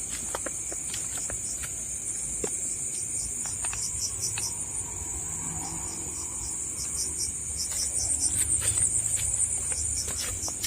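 Crickets and other night insects chirring in a steady, high continuous trill, with a rhythmic pulsed chirp that grows denser in the second half. Scattered faint clicks sound underneath.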